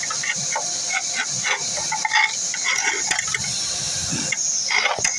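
Vacuum hose sucking mouse-nest material out of a pipe: a steady rush of air, with quick, irregular clicks and rattles as debris goes through.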